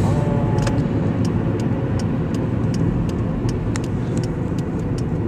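Road and engine noise inside a moving car on a highway: a steady low rumble, with faint regular ticks about three a second.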